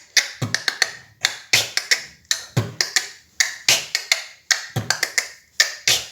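Vocal beatboxing: a steady beat of sharp mouth and tongue clicks, with a low bass kick about once a second.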